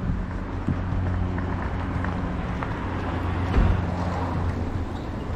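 Steady road-traffic hum with a low drone running through it, and a single thump about three and a half seconds in.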